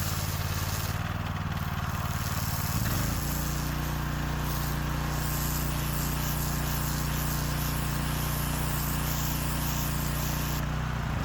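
Small four-stroke engine of a gas pressure washer running steadily just after starting. Its note changes about three seconds in and then holds even. It starts and runs now that the crankcase has been topped up with oil, so the low-oil shutdown switch no longer stops it.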